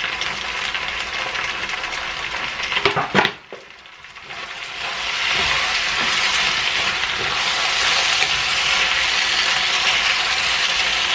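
Chicken sizzling in a frying pan while being stirred, with a couple of sharp clinks about three seconds in. The sizzle drops away briefly, then comes back stronger and steady.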